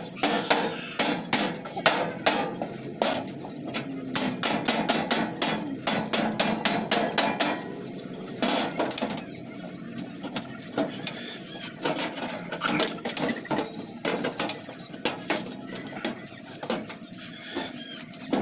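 Metal blows on a galvanized sheet-metal tricycle floor panel as it is knocked into place. About three sharp strikes a second for the first seven seconds, then fewer, lighter knocks.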